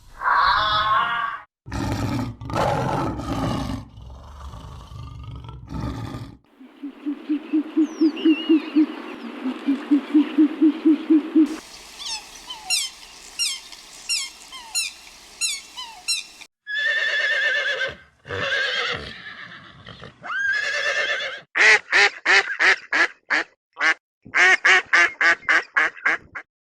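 A series of different farm animal calls cut one after another. It starts with a pitched call, then a few seconds of loud low knocking, then fast even pulsing, then rapid high chirps, then drawn-out pitched calls, and near the end a quick run of sharp repeated calls.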